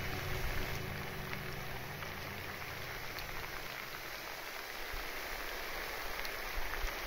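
Steady rain falling, an even hiss, with background music fading out over the first few seconds.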